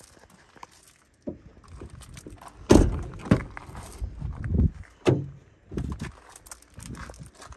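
Doors of a 2004 Ford F-250 Super Duty crew cab being shut and opened: a string of thunks and latch clicks, the loudest a little under three seconds in.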